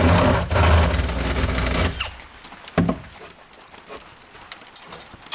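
A power tool's motor running loud and steady for about two seconds, with a brief dip near the start, then a short second burst a little before three seconds in, followed by light knocks and handling.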